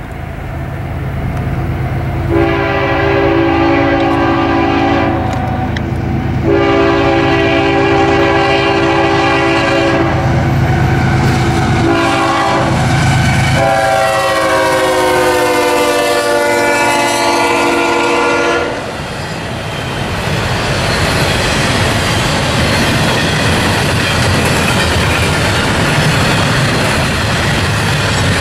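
CSX diesel locomotives' air horn sounding the grade-crossing signal, long, long, short, long, over the low drone of the engines; the pitch falls during the last long blast as the lead unit passes. The double-stack container cars then roll by with a steady rumble and wheel clatter on the rail joints.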